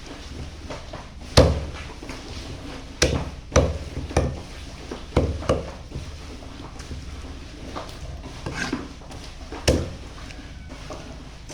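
Cleaver chopping through chicken onto a wooden chopping block: heavy, irregular chops with a deep thud, about seven or eight strokes spread unevenly, the hardest about a second in and near the end.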